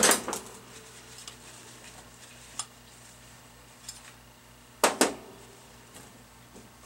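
Metal clinks and knocks as the cast-alloy hydraulic pump housing and tools are handled on a steel workbench: a sharp clink at the start, a few light ticks, then two loud knocks close together about five seconds in as the housing is turned on the bench.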